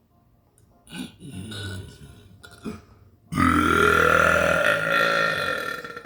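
A person burping: softer short throat sounds about a second in, then one long, loud burp of about two and a half seconds whose pitch rises and falls.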